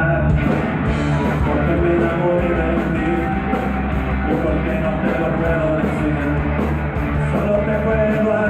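Rock band playing live and loud, a steady full-band passage with no words.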